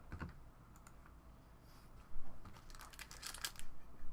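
Card-pack wrapper crinkling and tearing as a pack is opened, in quick rustles that start about two seconds in.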